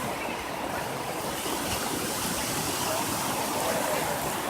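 Atlantic surf washing steadily onto the beach, an even rush of breaking waves.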